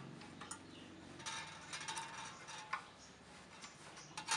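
Faint clicks and scraping of metal parts being handled as an electric grater's stainless-steel body is fitted onto its steel stand.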